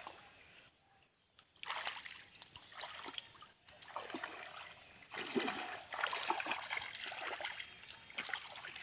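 Shallow water splashing and sloshing in irregular bursts, starting about two seconds in after a brief quiet spell.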